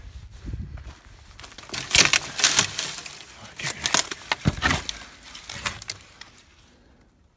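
Footsteps crunching through dead dry grass and brush, with a run of crackles and snaps that is loudest in the middle and fades near the end.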